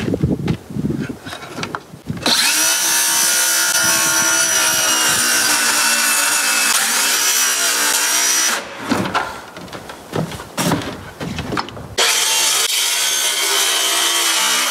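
An electric power saw cutting through wood, a steady loud whine that sags slightly under load for about six seconds. It is followed by a few seconds of wood knocking and being handled, and the saw starts cutting again near the end.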